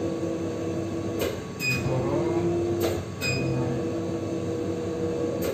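Motorised front glass sash of a Biobase laminar flow cabinet running as it rises, a steady hum. A few sharp clicks and two short electronic beeps from the control panel come through it, and the motor stops near the end.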